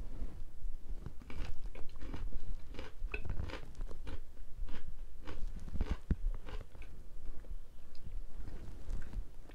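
A person chewing and biting food close to the microphone: a quick run of short chewing sounds that thins out after about seven seconds.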